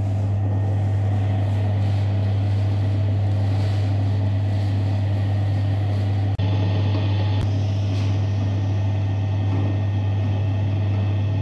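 Electric dough-kneading machine running, its motor giving a loud, steady low hum as the arm works flour and water into dough. There is a brief drop-out about six seconds in.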